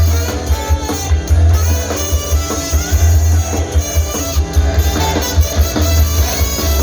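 Pop-rock song with guitar, drums and a strong bass line.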